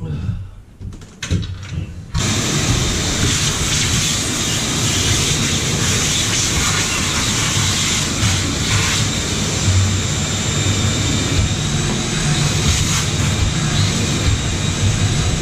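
A few light knocks, then a vacuum cleaner switched on about two seconds in, running steadily with a high motor whine as it sucks up fiberglass dust from the boat's console and floor.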